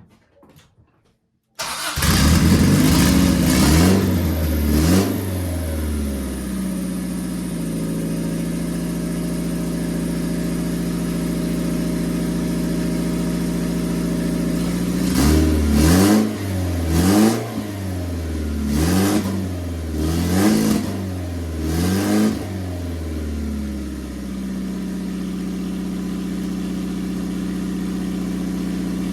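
Turbocharged Honda D-series 'mini me' engine, a D16Y8 head on a D15B7 block, catching suddenly about two seconds in, revving briefly and settling to a steady idle. Later it takes about five quick throttle blips in a row, each rising and falling, before dropping back to idle.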